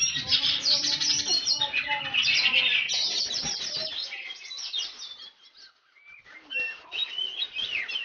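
Oriental magpie-robin (kacer) singing: a dense run of quick, varied high whistles and chirps for about four seconds, trailing off, then a few scattered short phrases near the end.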